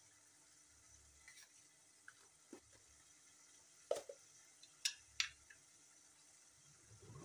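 Kitchen utensils and containers being handled: a few light knocks and clicks, one about four seconds in and two sharper ones about a second later, over a faint steady hum.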